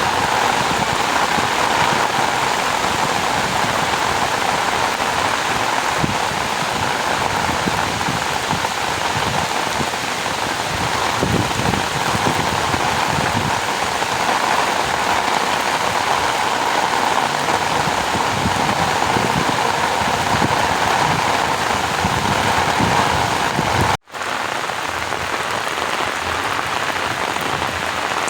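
Steady rain falling on flooded rice paddies, an even hiss of drops. Near the end the sound cuts out for a split second, like an edit splice, then carries on.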